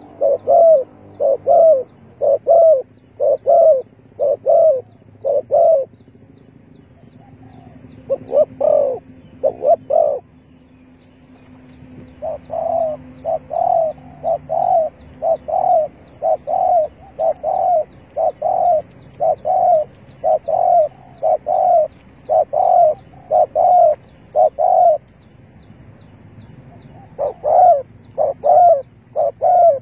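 Spotted dove cooing: a rapid series of short, repeated coos, about two a second, in long runs that break off briefly a few times.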